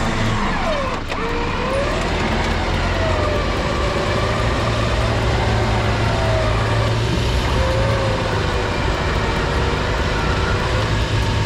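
Four-wheel-drive engine running steadily, its pitch slowly rising and falling, with a sharp knock about a second in.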